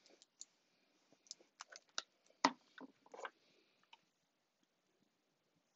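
Faint, scattered clicks and taps of craft tools being handled on a tabletop: a liquid glue bottle set down and metal tweezers picked up. One sharper tap comes about two and a half seconds in.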